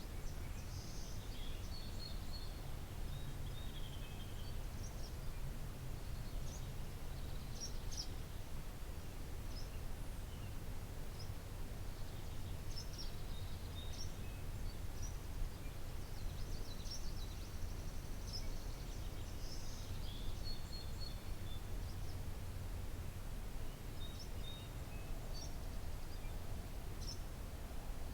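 Outdoor ambience of several songbirds singing and chirping on and off, with short high calls and trills throughout, over a steady low rumble.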